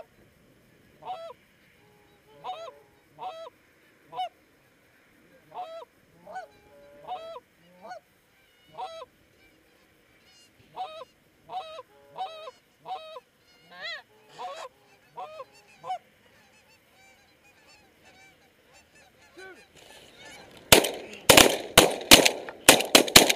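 Goose honks, one at a time and a second or so apart, for about the first sixteen seconds. Near the end comes a rapid volley of shotgun fire, about ten loud shots in under three seconds.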